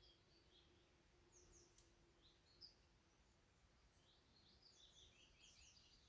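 Faint songbirds chirping and trilling in short scattered calls, becoming busier about four and a half seconds in, over a low hiss with one small click.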